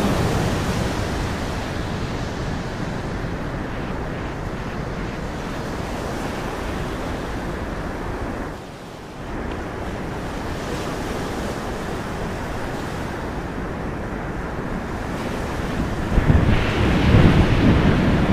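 Sea surf washing onto a shore, mixed with wind buffeting the microphone. The noise drops away briefly about halfway through and swells louder near the end.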